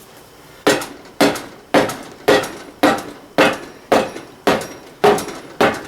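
Hammer blows, about ten in a steady rhythm of roughly two a second, struck while working a stubborn tractor front tire off its rim.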